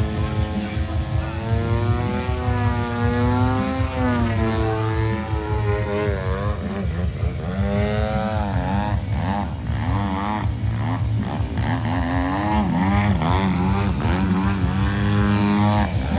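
Radio-controlled aerobatic airplane's engine and propeller in flight, its pitch rising and falling again and again as it throttles and passes overhead, over a steady low hum.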